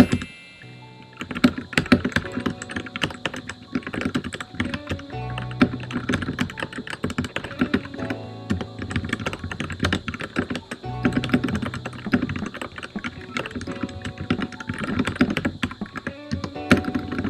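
Typing on a Royal Kludge RK71 mechanical keyboard with red linear switches: a fast, uneven run of key clacks, over background music.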